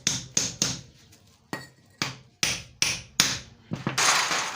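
Hammer tapping an oil seal into a Honda CD70 front fork leg. Three quick blows, a pause of about a second, then steadier blows about two or three a second, with a short noisy rush near the end.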